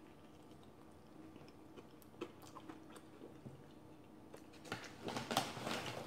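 Quiet chewing with small mouth clicks. About five seconds in, a plastic tortilla-chip bag crackles and rustles loudly for about a second as a hand reaches into it.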